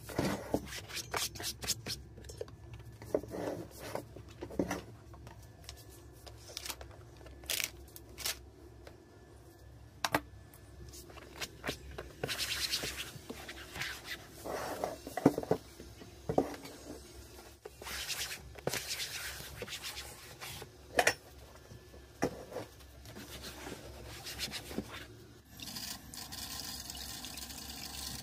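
Tissue wiping and rubbing over chair seats and backs, with scattered light knocks and scrapes of handling. Near the end, a kitchen tap runs steadily into a stainless steel sink.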